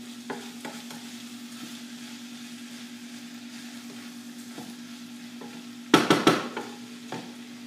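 Rice sizzling as it fries in butter in a pot, stirred with a spoon, over a steady hum. About six seconds in, a short burst of loud clacks as the spoon knocks against the pot.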